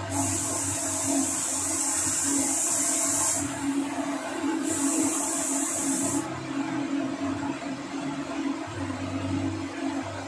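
Paint spray gun hissing in two bursts, the first about three seconds long and the second, starting near the middle, about a second and a half, over a steady motor hum.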